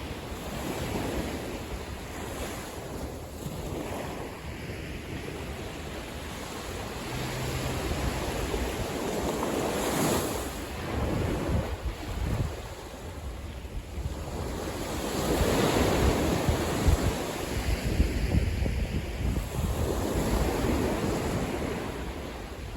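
Sea waves washing onto a sandy beach, the surf swelling and fading in slow surges. Wind buffets the microphone with low rumbling gusts.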